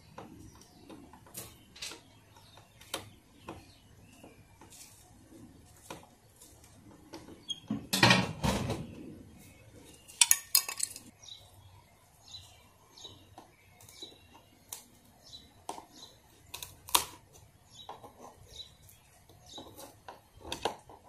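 Scattered clicks and clinks of hand tools, screws and plastic light covers being worked loose from a camper's aluminium siding, with a louder clatter about eight seconds in and a quick burst of clicks around ten seconds.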